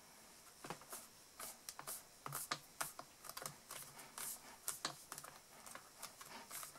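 Fingertips pressing and tapping a red rubber cling stamp down onto cardstock inside a stamp-positioning tool: a faint, irregular run of small clicks and taps.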